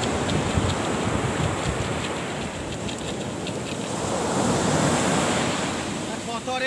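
Surf breaking and washing up a sandy beach, a steady rushing wash, with wind buffeting the microphone.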